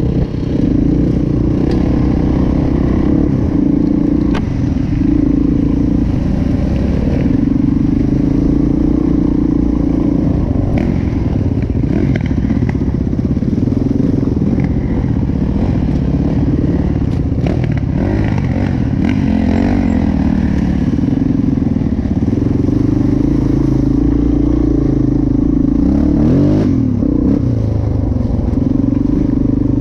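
Dirt bike engine, heard close from the bike itself, running continuously with the revs rising and falling as it rides over ruts and mud, with clattering knocks from the bike on the rough ground.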